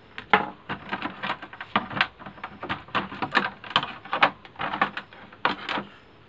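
Irregular clicks and knocks, two or three a second, from the parts of an opened LED TV being handled on the bench.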